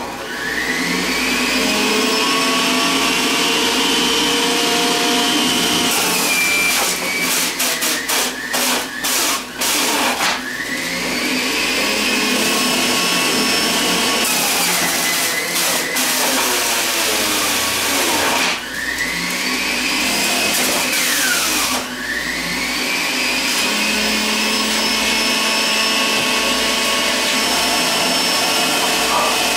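Electric juicer motor spinning up as it is switched on, then running with a high, steady whine. Carrots and other produce pushed down the feed chute are ground with a rapid crackling rattle, and the motor slows under the load and picks back up several times.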